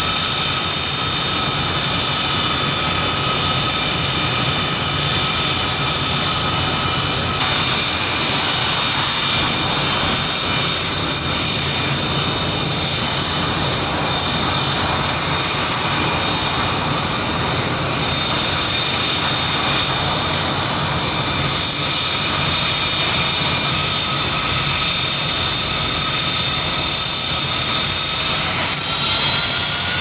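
Learjet 45's twin rear-mounted Honeywell TFE731 turbofans running at idle: a steady high whine over a low rumble. Near the end the whine rises in pitch as the engines spool up to move the jet off.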